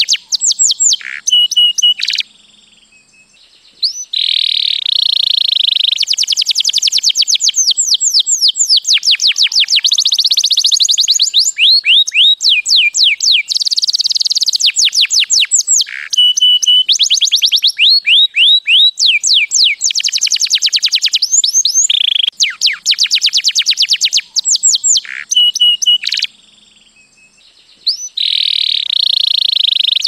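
White canary singing a long song of fast trills, each phrase a rapid run of repeated high notes. The song breaks off twice for about two seconds, a couple of seconds in and again near the end.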